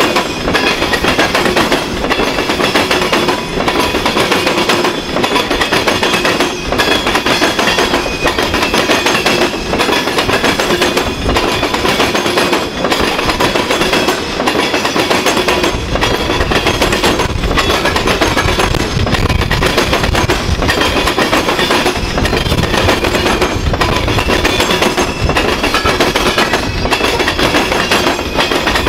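Covered hopper cars of a freight grain train rolling past: a steady loud rumble of steel wheels on rail, with regular clicks as the wheels cross rail joints.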